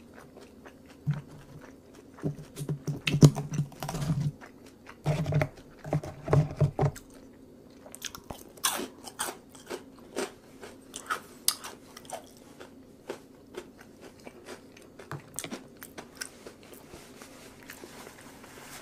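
A person chewing and biting food close to the microphone, with many short wet mouth clicks; the chewing is loudest in the first seven seconds.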